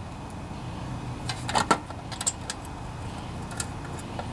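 Light metallic clicks and clinks of small bolts and parts being handled, several close together a little over a second in and a few scattered after, over a low steady hum.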